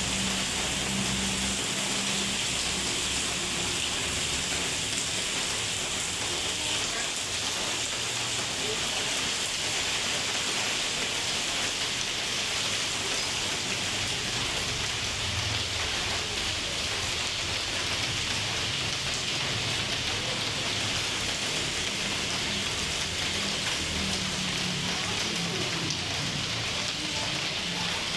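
Heavy rain falling steadily, with a low hum underneath at the start and again through the second half.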